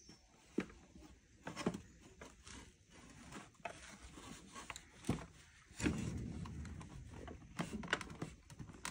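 Plastic headlight parts being handled and fitted together: irregular clicks and knocks with rubbing and scraping between them, busiest a little past the middle.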